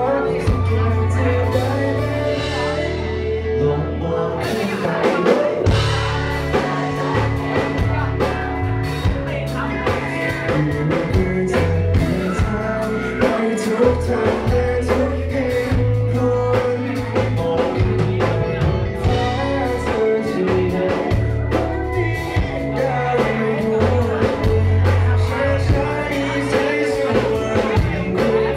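A live band playing rock-style music with a lead singer, drums and guitar, loud and continuous.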